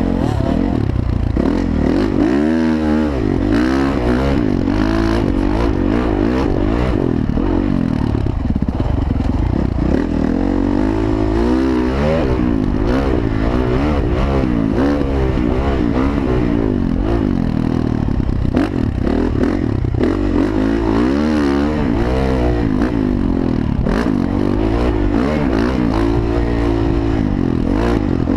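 Honda CRF450 dirt bike's single-cylinder four-stroke engine heard from on board while being ridden, its pitch rising and falling over and over as the throttle is opened and closed through the gears.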